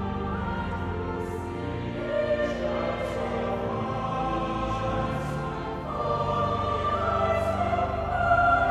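Choir singing a slow hymn in held chords, growing louder near the end.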